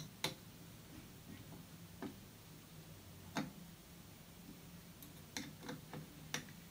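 Irregular light clicks and taps of a hex key and small hardware as the clamp bolts on an aluminium Versa block are tightened down, over a faint steady low hum.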